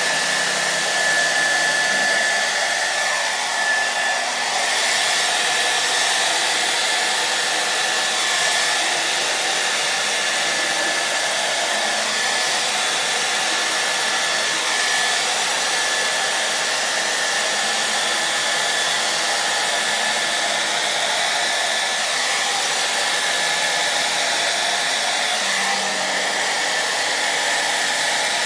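Handheld hair dryer running steadily, blowing air over wet pour paint on a canvas: an even rush of air with a thin, high, steady whine.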